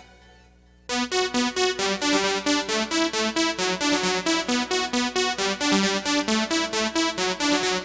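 Gap between two tracks of a 1990s Eurodance compilation: the previous song fades out into a brief near-silent pause, and about a second in the next track's intro starts, a synthesizer keyboard riff of quick, even notes with no drums yet.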